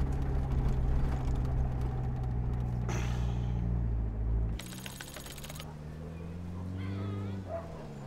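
Steady low drone of a passenger van's engine and road noise heard from inside the cabin, cutting off abruptly about halfway through. A short run of rapid clicks follows, then a quieter low tone that slowly rises.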